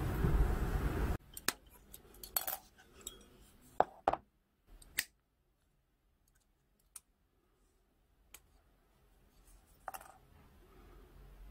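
A steady rushing noise that cuts off about a second in. After it come scattered sharp clicks and snaps of a plastic model kit's sprue being handled and clipped with side cutters.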